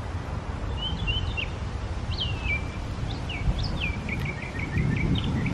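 A songbird chirping: short high notes that slide downward, coming faster in a quick run of notes near the end, over a steady low outdoor rumble.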